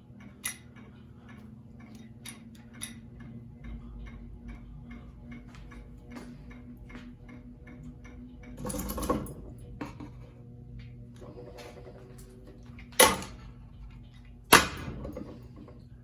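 Ceiling fan running with a steady motor hum and a rapid, even ticking, about three ticks a second. A brief rushing noise comes about nine seconds in, then two loud sharp knocks about a second and a half apart near the end.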